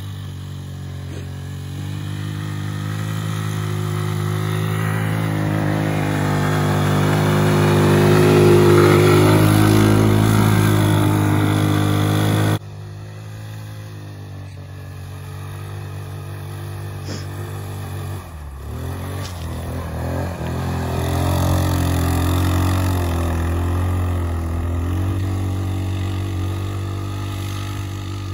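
Tao Tao 200cc ATV engine running as the quad is ridden through snow. It grows louder toward about eight seconds in, drops abruptly at a cut about twelve seconds in, then swells and fades again.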